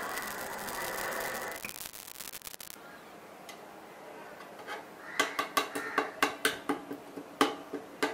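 A knife blade scraping and prying melted drinking-straw plastic on top of a metal pot: a quick series of short, sharp scrapes and taps starting about five seconds in. Before that, a soft hiss of the last flames on the plastic fades out within the first two seconds.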